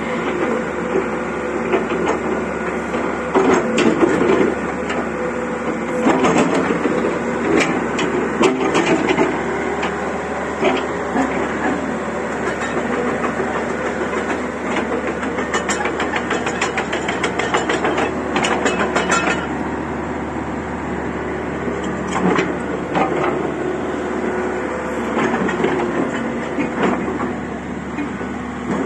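Hitachi Zaxis 60 mini excavator's diesel engine running steadily while the machine travels and turns, its steel tracks clanking and rattling in spells.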